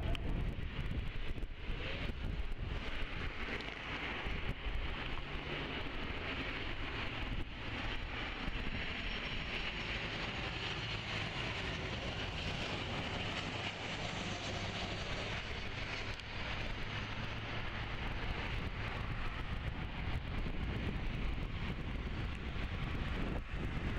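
Boeing 737 jet engines on landing approach: a steady whining jet roar that is strongest around the middle as the plane passes close, over wind buffeting the microphone.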